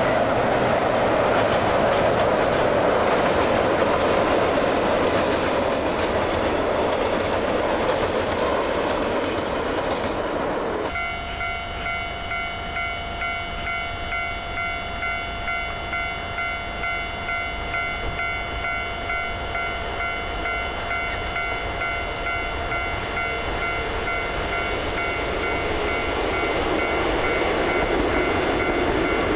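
Diesel-hauled train of hopper wagons crossing a steel girder bridge, its rumble mixed with a river rushing over rapids. Then, after a sudden change, a steady high whine with overtones pulsing faintly, under the noise of a diesel train approaching and growing louder near the end.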